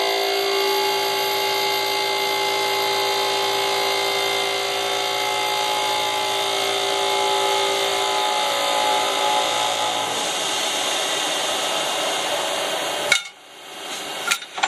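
Jenn Wei JMY multi-axis CNC turning-milling center machining a workpiece: a steady whine of several tones over a rasping cutting noise. It stops suddenly about 13 seconds in, followed by a few sharp clicks.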